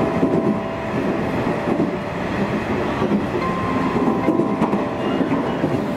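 Nishitetsu electric train running at speed, heard from inside the carriage: a steady noise of wheels and running gear on the track. A thin steady tone rises over it for about a second, a little past the halfway point.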